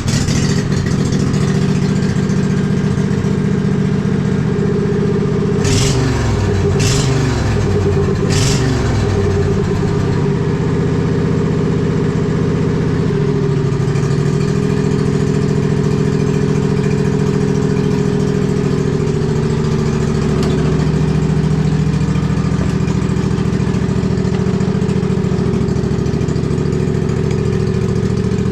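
Husqvarna riding mower's engine running steadily, with its carburetor freshly cleaned of water and rust. Its pitch shifts up and down about six to nine seconds in, with three sharp knocks around then, before settling back to a steady run.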